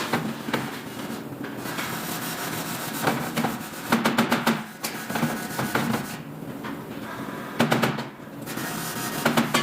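Metalworking noise: steady rubbing or sanding on metal, broken by several short runs of quick knocks.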